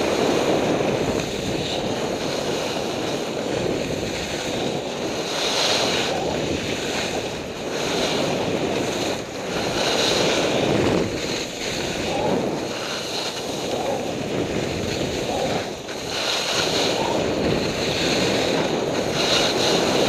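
Wind rushing over the microphone of a skier's camera during a downhill run, with the hiss of skis sliding and carving on snow swelling at each turn every few seconds.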